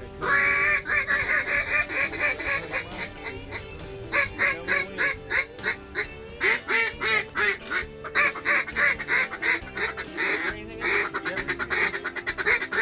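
Duck quacking in fast runs of short repeated notes, with background music.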